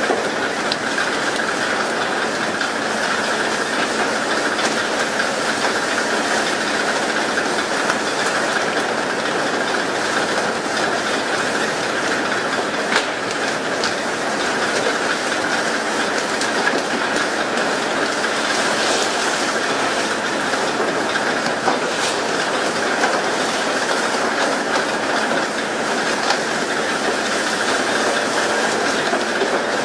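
Steady rushing hiss of water spray and sea along the side of a pole-and-line tuna boat, with the boat's machinery running underneath and a few faint knocks.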